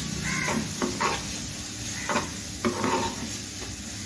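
A steel spoon stirring and scraping fried onion-tomato masala around a nonstick kadai, with several short scrapes over a steady sizzle of frying.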